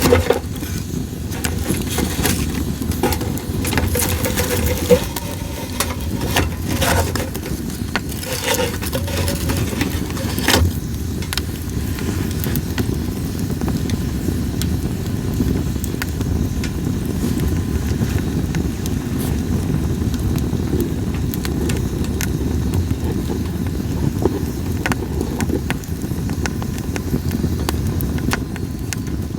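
Split sawtooth oak (kunugi) firewood burning in a campfire, crackling with sharp pops that come thickly for the first ten seconds or so and more sparsely after, over a steady low rumble.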